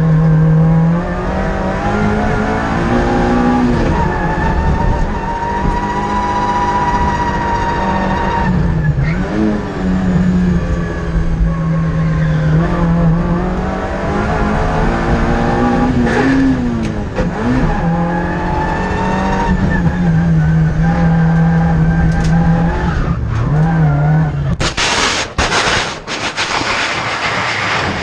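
Citroën Saxo N2 rally car's four-cylinder engine at racing speed, its note climbing and dropping through gear changes and corners. About 24 seconds in the engine note cuts off and a series of hard impacts and scraping noise follow as the car crashes, shattering the windscreen.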